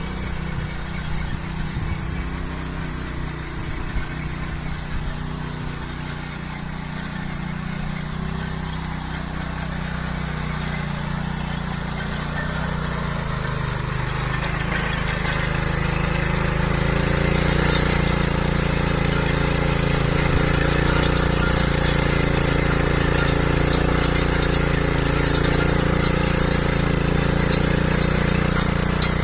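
Small engine of a motor cultivator running steadily, growing louder about halfway through.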